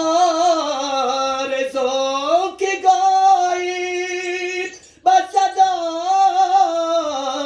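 Solo male voice singing a Dari devotional poem unaccompanied, stretching the words into long, ornamented held notes, with a short break for breath about five seconds in.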